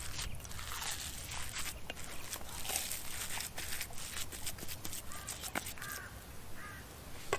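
Wet squishing and squelching of hands kneading raw minced meat and chopped onion in an enamel bowl, with a few short bird calls in the background near the end.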